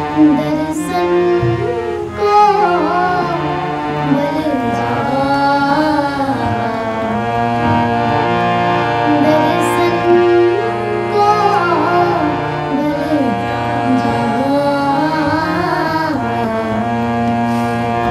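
Sikh kirtan: girls' voices singing a shabad over harmonium and tabla. The harmonium holds steady chords under a melody that bends and slides in pitch.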